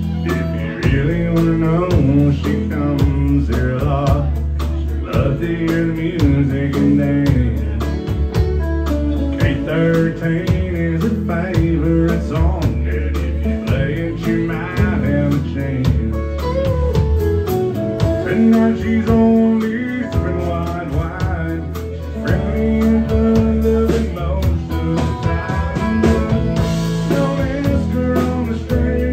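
A live country band playing a song: a male lead singer with an acoustic guitar, with fiddle, electric guitar, bass guitar and drums.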